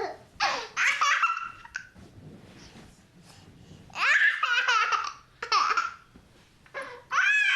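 An 18-month-old baby boy laughing loudly in several high, squealing bouts, with a short pause partway through.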